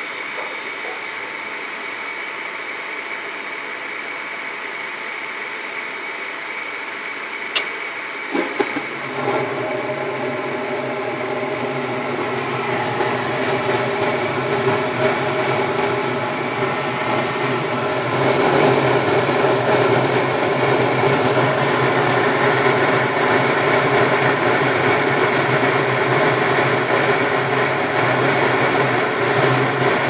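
Lennox gas furnace running with its burners lit: a steady mechanical hum with a thin high tone. A sharp click comes about seven and a half seconds in and a knock about a second later; then the running sound gets louder and steps up again around eighteen seconds.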